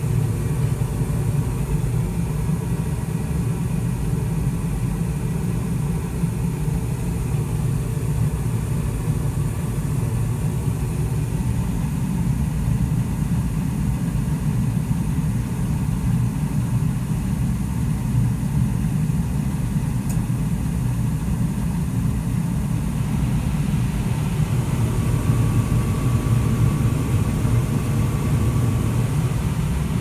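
2003 Carrier gas furnace running fired, with a steady low rumble. Its replacement inducer motor runs smoothly, without the clanking of the worn old motor. A faint high whine comes in about three-quarters of the way through.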